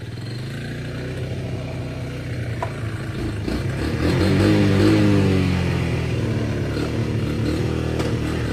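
Motorcycle engine running while riding on a muddy dirt track. It revs up about four seconds in, then eases back to a steadier note.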